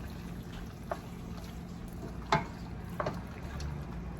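Rigatoni being folded into a thick sauce in a pan: soft wet stirring with a few sharp clacks of the utensil against the pan, the loudest about two seconds in, over a low steady hum.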